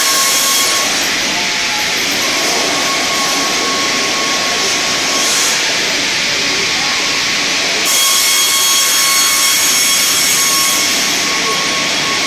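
StrojCAD D9 double-blade circular sawmill running, its two saw blades giving a loud, steady whine with several high tones. A harsher, brighter hiss of the blades cutting through spruce is heard at the start and again from about eight seconds in until near the end.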